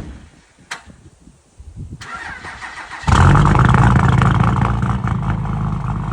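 Dodge diesel truck engine cold-starting with a block heater that doesn't work: a click, about a second of cranking, then it catches abruptly and runs loud and steady.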